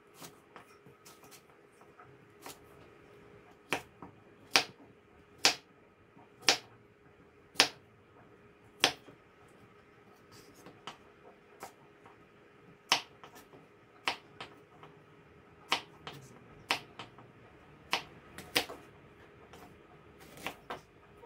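Chef's knife chopping carrot, zucchini and onion on a wooden cutting board: single sharp knocks of the blade on the wood, irregular, roughly one a second.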